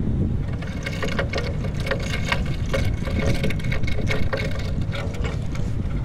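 Medium "Hurdy-Gurdy Reel" kite-choir instrument heard through its contact mic as it is handled: a steady low rumble with frequent clicks and knocks, and a thin two-note hum that comes and goes from about a second in until near the end.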